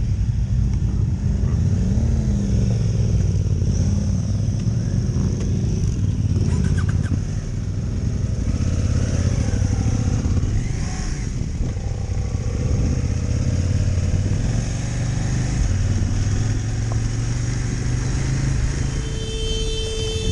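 Adventure motorcycle engine running steadily while riding a forest fire track, its pitch drifting a little with the throttle. A steady tone comes in near the end.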